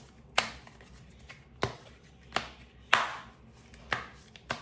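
Tarot cards being handled and drawn: a series of about six sharp card snaps and taps against a table, irregularly spaced.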